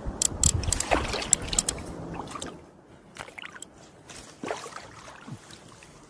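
Spinning reel cranked in a run of quick clicks for the first couple of seconds, with water sloshing. Then quieter, scattered splashes as the landing net is lifted out of the pond.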